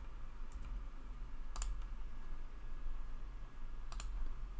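A few sharp clicks from a computer keyboard and mouse as a value is typed in and confirmed: a faint one about half a second in, a louder one about a second and a half in, and another near the end. A low steady hum runs underneath.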